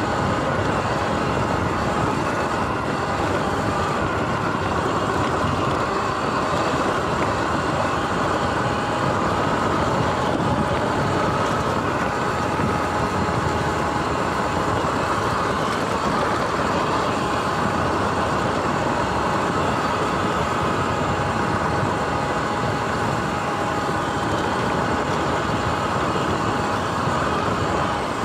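Sur-Ron X electric dirt bike riding over grass and dirt: a steady rushing noise with a faint drivetrain whine running through it, unbroken throughout.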